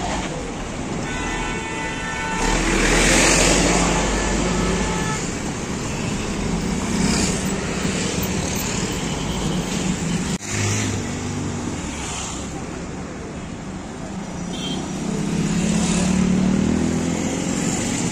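Road traffic in a slow-moving jam: motor scooters, motorcycles, e-rickshaws and cars running past at close range. The noise swells as vehicles pass close about three seconds in and again near the end.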